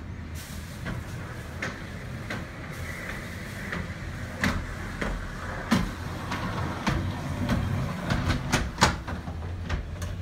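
Frameless glass balcony panels being moved along their track: a run of sharp clicks and knocks, thickest and loudest about eight to nine seconds in, over a steady low hum.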